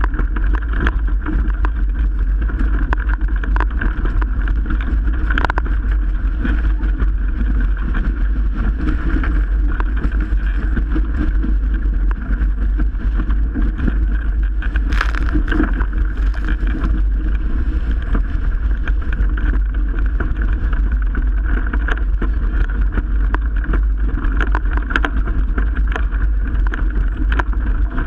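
Strong wind buffeting the microphone and water rushing past the hull of a Melges 24 sailboat under way in 30+ knot winds, loud and steady, with frequent short sharp knocks throughout.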